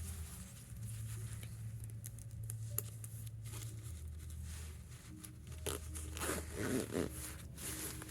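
A zipper being run, with two short zipping strokes about six and seven seconds in, among a few light clicks, over a steady low hum.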